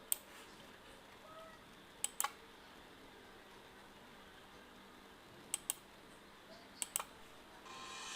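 Computer mouse clicking: a few sharp clicks, mostly in quick pairs, spaced a couple of seconds apart. Near the end, music starts to play.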